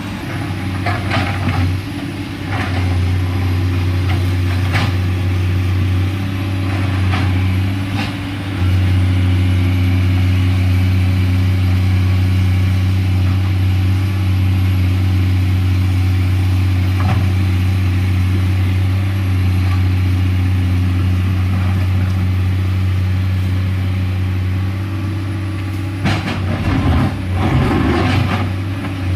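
Komatsu PC210LC hydraulic excavator's six-cylinder diesel engine running steadily under working load, getting a little louder about eight seconds in. Scattered knocks and scrapes come through now and then, with a cluster of them near the end.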